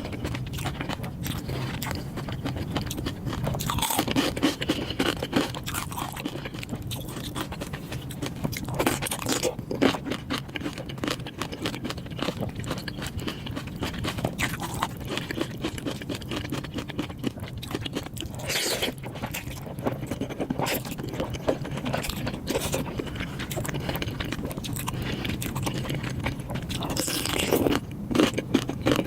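Close-miked eating sounds: food crunched and chewed, with scraping and many small clicks, over a faint steady low hum.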